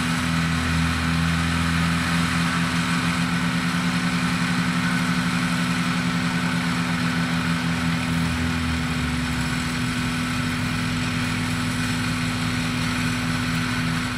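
Lada Niva's engine running at a low, steady pace as the car crawls through soft marshy ground. The note holds almost constant the whole time, with no revving.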